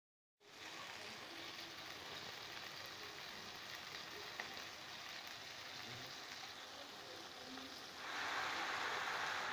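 Chopped spring onions sizzling in hot oil in a wok, a steady frying hiss that grows louder about eight seconds in, with one small click midway.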